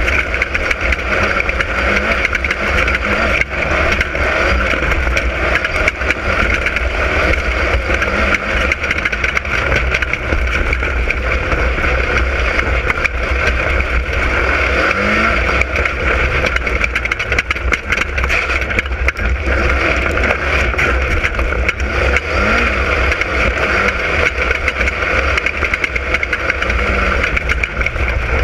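Class 10 off-road race car running flat out, its engine note steady over a constant heavy low rumble.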